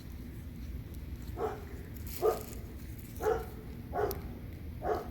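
A dog barking five times, roughly one bark a second, starting about a second and a half in.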